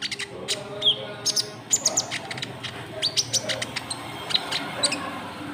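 Konin trotol bird calling: a fast, irregular string of short, sharp high chirps and quick upward-swept notes, several a second. This is the lure call used to draw in rival birds.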